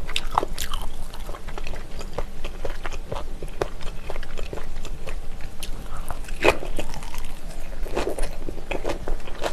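A person chewing and biting close to the microphone: a boiled cabbage-leaf wrap of spicy pressed chicken-feet slices, with irregular mouth clicks and smacks and louder bites about six and a half and eight seconds in.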